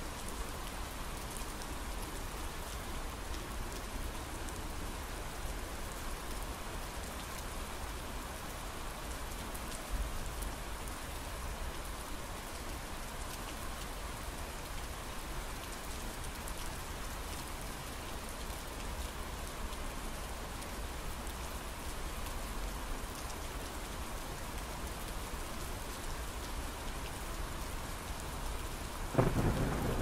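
Steady rain falling. About a second before the end a loud clap of thunder breaks in, with a deep rumble.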